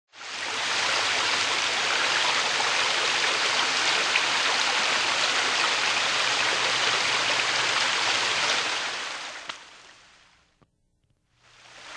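A steady rush of water, an even hiss-like noise with no rhythm or pitch, that fades out about nine to ten seconds in, drops to a brief silence, then starts rising again near the end.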